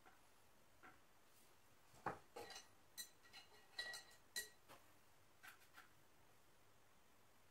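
A handful of light clinks and knocks of small hard objects, some with a brief ringing tone, about two seconds in and bunched over two to three seconds. Two fainter ticks follow, then near silence. These are painting tools being handled on the work table.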